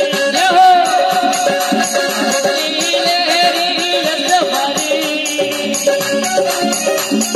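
Live Rajasthani devotional bhajan music: held harmonium-like notes over a fast, even hand-percussion beat with jangling rattles, and a weak melodic voice line.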